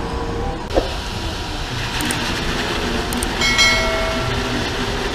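Concrete mixer truck running: a steady rumble of diesel engine and machinery. A short high squeal comes about three and a half seconds in.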